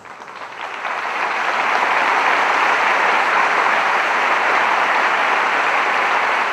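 Audience applauding in a hall, swelling over the first second, holding steady, and beginning to die away at the very end.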